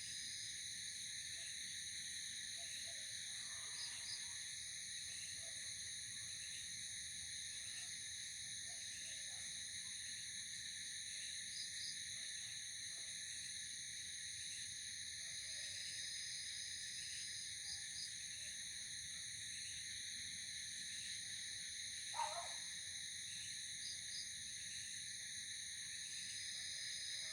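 Night insect chorus: a steady, many-layered high trilling, with a short double chirp every few seconds and one brief louder call near the end.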